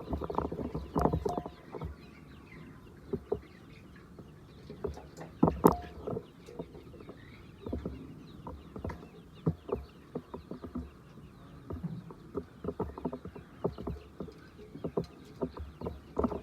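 Laying hens clucking, in short irregular calls with louder clusters near the start, around six seconds in and toward the end.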